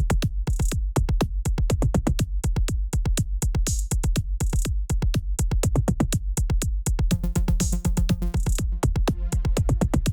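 Electronic background music with a fast, steady drum-machine beat and bass; sustained synth notes come in about seven seconds in.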